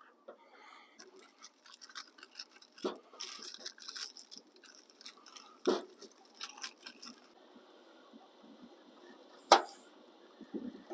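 Food and its packaging being handled: crinkling and rustling with small knocks as items are taken out of a wooden storage drawer, then quieter, with a sharp knock about three-quarters of the way through.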